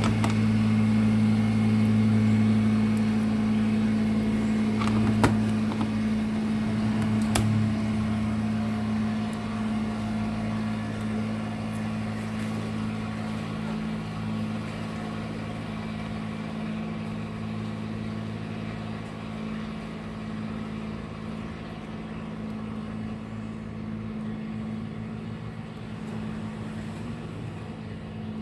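Steady low machine hum with several fixed pitches, slowly fading, with a couple of faint clicks partway through.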